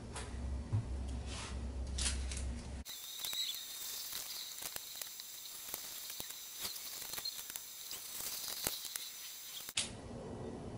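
Small, sticky clicks and pats of hands shaping a ball of stuffed mashed-potato dough, then setting it on a metal tray. A steady hiss comes in about three seconds in and cuts off sharply near the end.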